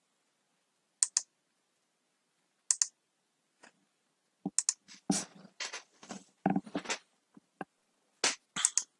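Computer keyboard keys clicking: two single presses in the first few seconds, a quicker run of keystrokes in the middle, then a few more presses near the end.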